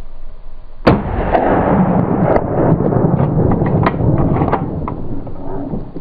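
A single hunting rifle shot about a second in, followed by a few seconds of loud, rolling rumble with scattered clicks that fades away.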